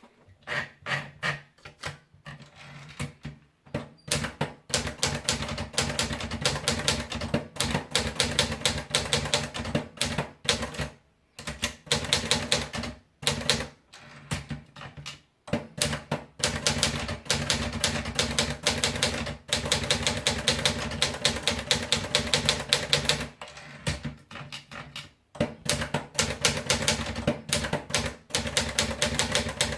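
Olivetti Studio 45 manual portable typewriter being typed on: rapid runs of key strikes, several a second, broken by short pauses every few seconds.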